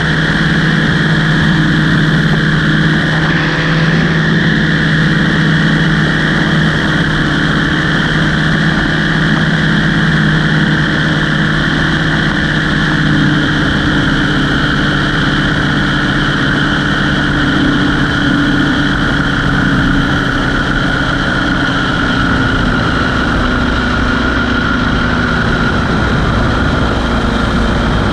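Engine and propeller of a small aircraft droning steadily in flight, the engine note shifting slightly partway through.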